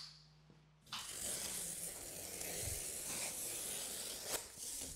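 Knife slitting open a cardboard box of parquet planks: a continuous scratchy tearing of cardboard that starts about a second in, with one dull knock partway through.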